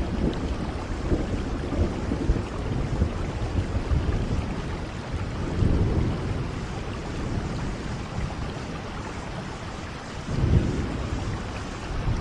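Heavy rain falling steadily, with low rumbles of thunder swelling about halfway through and again near the end.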